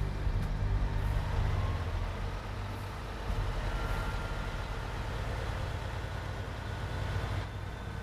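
Heavy truck engine running steadily at low pitch, with a hiss over it.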